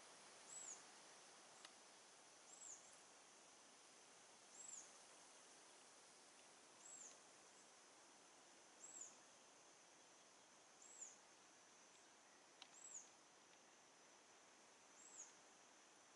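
Near silence: a faint hiss with a small animal's short, high call, rising then falling in pitch, repeated regularly about every two seconds.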